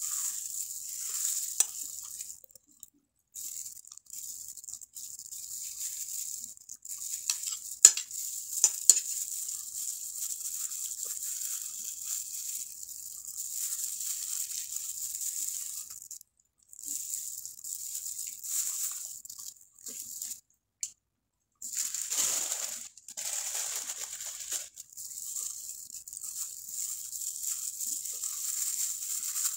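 Plastic food glove crinkling and crisp fried tilapia skin crackling as the fish is torn apart by hand, with a few sharp clicks about eight seconds in and a louder stretch of crackling around twenty-two seconds.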